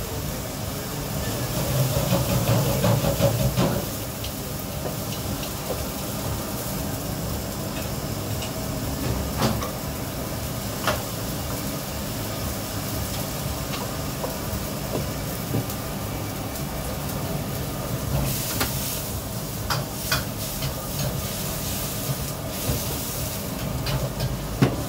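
Restaurant kitchen noise: a steady hum and hiss with scattered clinks and knocks, louder for a couple of seconds near the start, and spells of higher hissing a few seconds before the end.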